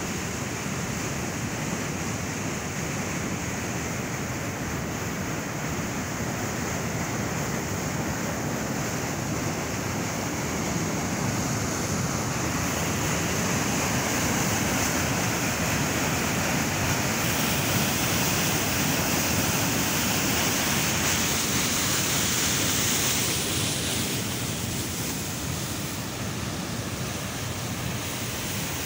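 Fast mountain stream rushing over rocks between snow and ice banks, a steady, even rush of water that grows louder for about ten seconds in the middle.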